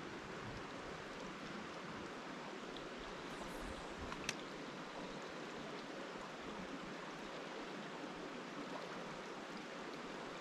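Steady rushing of a mountain trout stream, with a single sharp click about four seconds in.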